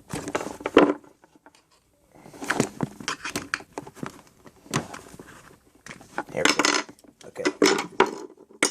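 Flathead screwdriver and a hard plastic cable-connector casing clicking and clattering in irregular bursts as the casing is worked off the AV composite cable's connector.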